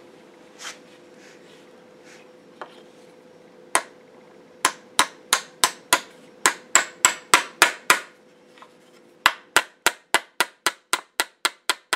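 Small hammer tapping a metal pin into a rifle's wooden stock. A few light taps come first, then a steady run of about three taps a second. After a short pause near eight seconds in comes a quicker run of about four taps a second.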